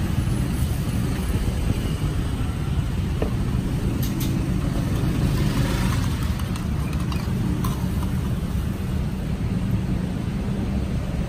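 Steady low rumble of road traffic with engines running, and a couple of faint light clinks about four and seven and a half seconds in.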